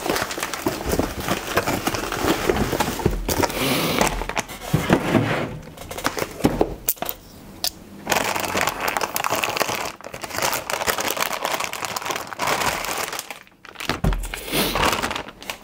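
Bubble wrap and a plastic anti-static bag crinkling and rustling as a graphics card is unwrapped by hand, in irregular spurts with short pauses.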